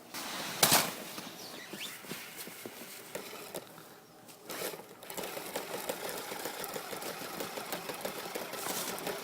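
Kyosho Blizzard SR radio-controlled tracked snow vehicle running, its electric motor and gears whirring, with a sharp knock about half a second in and fast, even ticking in the second half.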